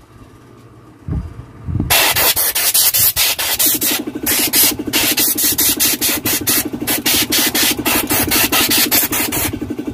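Compressed air hissing loudly from an air spray gun blown over a small engine's camshaft gear to clear debris. It starts about two seconds in and flickers as the trigger is worked, then stops near the end. From about four seconds in, an air compressor runs underneath with a low, rapidly pulsing hum that carries on after the air stops.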